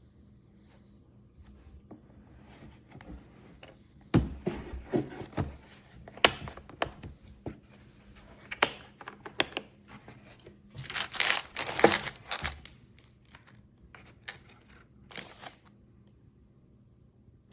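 Handling noises from a plastic tool kit case and its contents: a run of sharp clicks and knocks with crinkling rustle, densest and loudest around two thirds of the way through.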